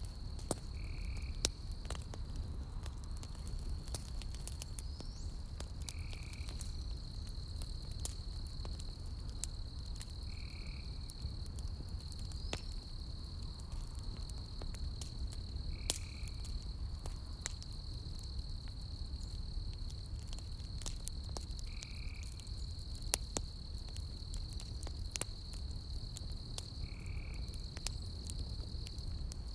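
Campfire burning logs, crackling with frequent sharp pops over a low steady rumble. Behind it a steady high insect trill runs on, and a short call repeats about every five seconds.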